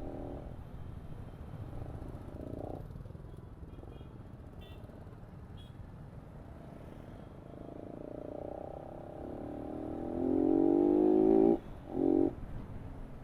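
Steady low rumble of road traffic and engine noise, then a vehicle engine revving up, rising in pitch for a few seconds before cutting off sharply, with a short second burst of revving just after.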